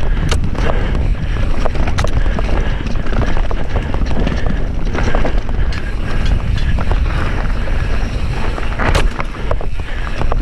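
Mountain bike ridden down a rough dirt trail: wind buffeting the camera microphone in a steady low rumble, with the bike's chain and frame rattling in many sharp clicks over the bumps.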